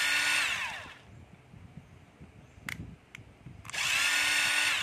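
14.4-volt cordless drill motor run in short trigger pulls: it whines steadily, then winds down with falling pitch about a second in. There is a single click a couple of seconds later, and the motor starts up again near the end.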